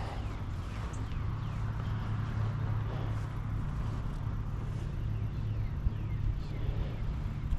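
Outdoor ambience: a steady low rumble of road traffic, with faint short chirps of birds scattered through it.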